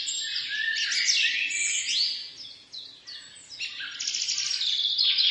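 A chorus of small birds chirping and twittering densely, with a brief lull about halfway through.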